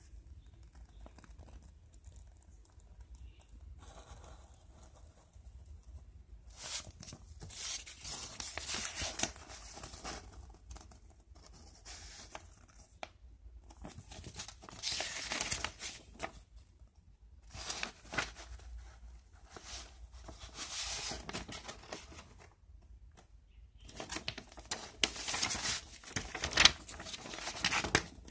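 Paper rustling as a model kit's instruction booklet is handled and its pages opened and turned, in four bursts of a few seconds each, the last the loudest.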